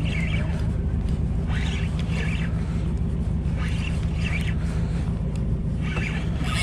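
Boat engine running at idle, a steady low drone, with short higher-pitched noises coming and going every second or so over it.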